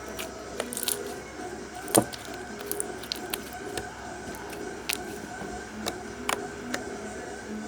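Putty slime being squeezed and handled, making irregular sticky clicks and pops, with a sharp pop about two seconds in, over a steady background hum.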